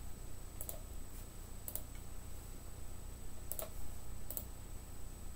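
A computer mouse clicked four times at uneven intervals, over a faint steady electrical hum.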